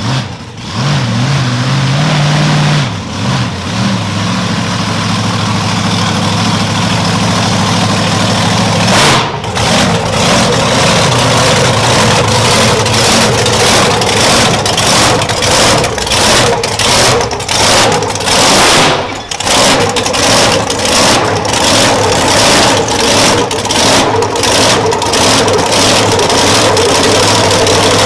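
Car engine idling steadily, then revved again and again in short blips about once a second.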